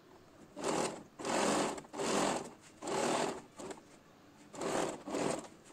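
Domestic sewing machine stitching fabric in about five short runs of roughly half a second each, stopping and starting with brief pauses between.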